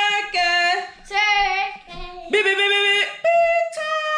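A girl singing a run of held, wordless notes, each about half a second to a second long with short breaks between, leaping up and down in pitch and ending on a long held high note.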